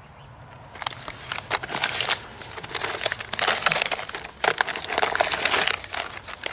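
Plastic bags crinkling in irregular bursts as bagged rocket-net charges are handled in a box, starting about a second in.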